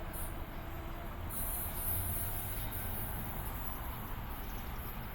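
NJ Transit commuter train running past on the tracks: a steady low rumble with wheel and rail noise, and a high hiss that comes in about a second in.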